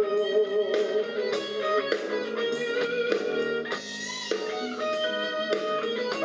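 A pop band playing live without singing: an instrumental passage led by electric guitar over a steady beat.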